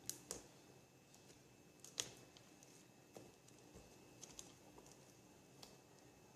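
Faint, scattered small clicks and pops of glitter slime being squeezed and stretched by hand.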